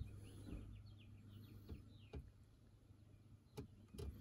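Near silence, with a faint bird twittering outside: a quick run of short downward-slurred chirps in the first half, then a few soft clicks.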